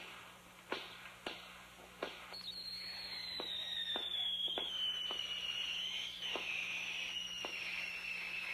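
Consumer fireworks going off: a string of sharp pops and cracks. From about two seconds in, a long shrill whistle from a whistling firework slowly falls in pitch while the pops go on.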